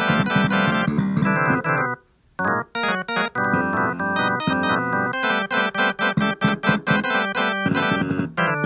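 Instrumental keyboard music with quick, busy organ-like notes; it breaks off briefly about two seconds in, then carries on.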